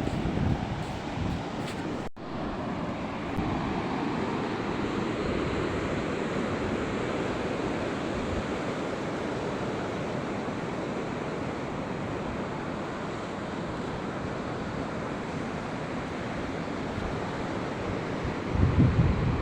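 Sea waves washing steadily onto a beach, with wind buffeting the microphone. A short gap in the sound about two seconds in, and a louder low wind rumble near the end.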